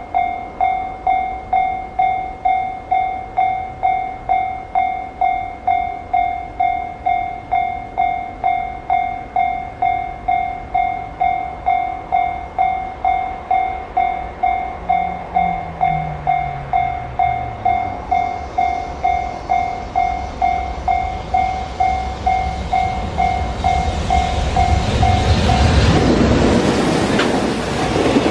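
Japanese railway level-crossing alarm ringing, an electronic bell tone striking about twice a second. A train's running noise swells over the last third and becomes loud as it passes near the end, when the bell stops.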